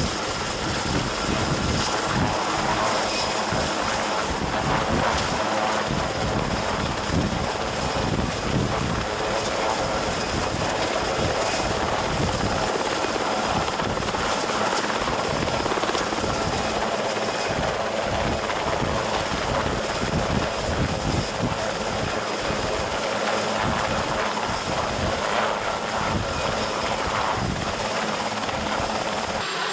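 Sikorsky VH-3D Sea King helicopter (Marine One) hovering low, its twin turbine engines whining steadily under the rapid beat of the main rotor.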